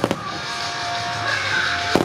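Music accompanying a fireworks starmine display, with a sharp firework bang at the start and another near the end.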